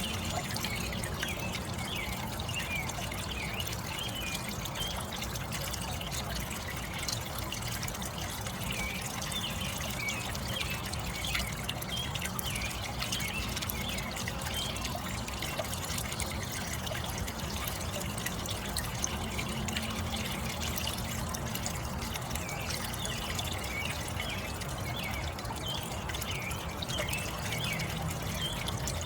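Small garden pond waterfall, water splashing and trickling steadily.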